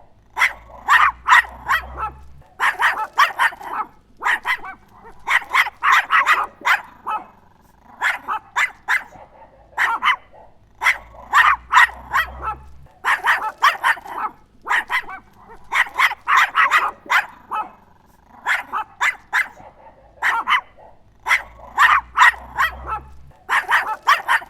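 A chihuahua barking in quick, high-pitched clusters of about three to six barks, with short pauses between clusters.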